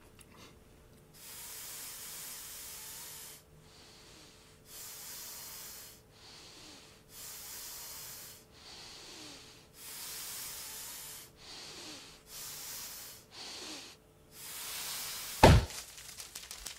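A person blowing hard into a bubble-gum bubble: about seven long hissing breaths out, with short pauses between them. The bubble then bursts in one sharp, loud pop about fifteen seconds in, followed by a light crackle of paper banknotes fluttering down.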